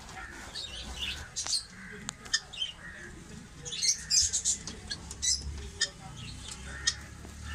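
Helmeted guineafowl calling in many short, sharp squawks and chirps, thickest about four seconds in.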